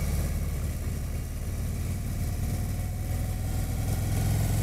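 Harley-Davidson touring motorcycle's V-twin engine running at low revs while cruising, heard from the rider's seat with wind rushing past. The engine eases off a little after the start and picks up again near the end.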